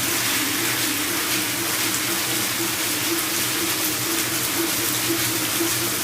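CNC lathe machining a ring groove in Inconel with coolant flowing: a steady hiss of coolant with a steady machine hum underneath.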